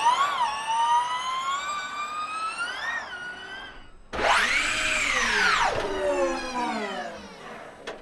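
Envision Racing Gen3 Formula E car's electric motor whining under acceleration: a rising whine that cuts off abruptly near four seconds in, then a louder whine that climbs sharply, peaks and falls away.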